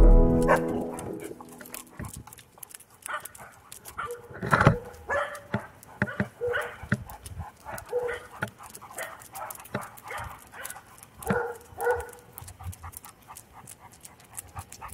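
German shepherd dogs giving short vocal calls, roughly one a second, while background music fades out in the first second or so.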